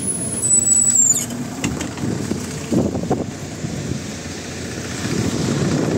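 MAZ-107 city bus's diesel engine idling at a stop, heard from just outside the bus as a steady low rumble with a few swells.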